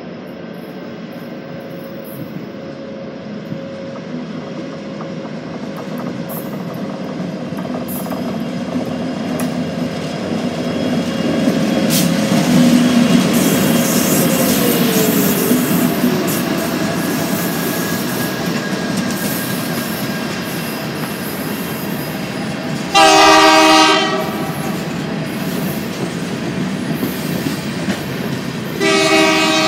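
Diesel freight locomotives, an EMD SD70MAC and a GE ET44C4, growing louder as they pull past, with a steady engine tone that drops in pitch as they go by. Empty coal hopper cars roll past after them. Two short, loud horn blasts come near the end, about six seconds apart.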